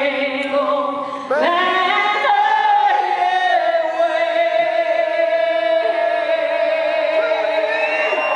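Singing of the US national anthem near its close: a new phrase begins about a second in, rising in pitch, then one long note is held steady.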